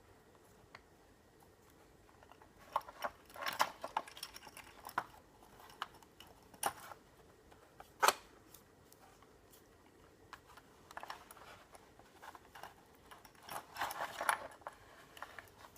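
Bubblegum beads strung on cord clicking and rattling against each other in scattered bursts as a knot is tied behind the last bead, with one sharp click about halfway through.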